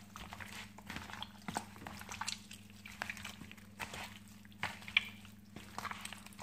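Wet squelching and slapping of raw chicken pieces being mixed in marinade by a plastic-gloved hand in a plastic basin, in irregular bursts with the glove crinkling. A steady low hum runs underneath.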